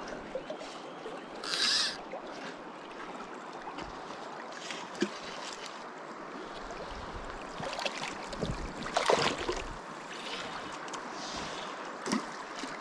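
Steady rushing of a fast-flowing river, with a few brief knocks and rustles, the loudest about a second and a half in and about nine seconds in.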